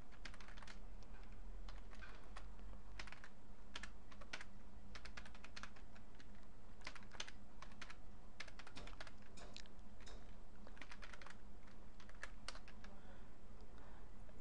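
Typing on a computer keyboard: irregular runs of quick keystrokes with short pauses between them, over a steady low electrical hum.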